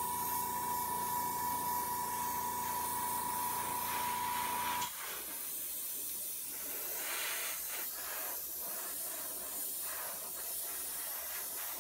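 Iwata airbrush spraying paint with a steady hiss of compressed air. A steady mechanical hum with a high whine runs under it and cuts off suddenly about five seconds in, leaving the hiss alone.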